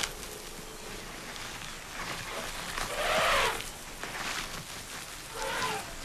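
African elephant calf calling twice with short, breathy moo-like calls, the louder one about three seconds in and a shorter one near the end.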